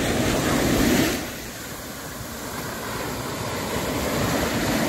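Surf breaking on a sandy beach: the wash of a wave is loud for about the first second, then drops away and slowly builds again with the next wave.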